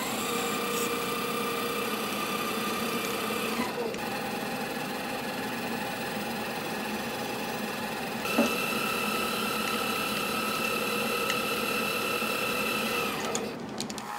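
Microlux 7x16 mini lathe running with a steady motor whine while a drill bit is fed into a spinning aluminium rod. The pitch of the whine shifts abruptly about 4 seconds in and again about 8 seconds in, and the sound fades out near the end.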